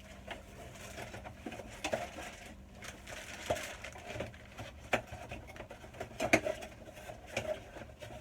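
Unboxing handling noise: scattered clicks, knocks and rustles as packaging and small accessories (a wireless microphone, its case and batteries) are taken out and handled, the loudest knock about six seconds in.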